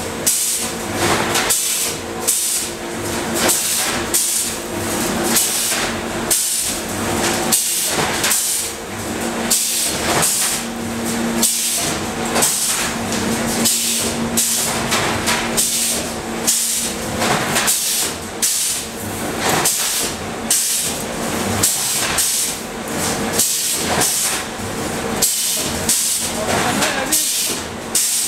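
Wire-mesh welding machine cycling: its pneumatic welding heads come down again and again, roughly one or two strokes a second, each with a hiss of air, over a steady hiss and hum.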